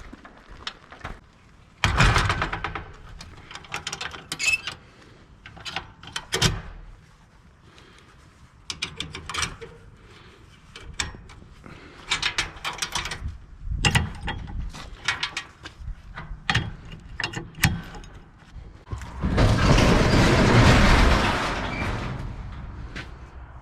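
Irregular mechanical clicks, clunks and rattles, with a louder rushing noise lasting about three seconds near the end.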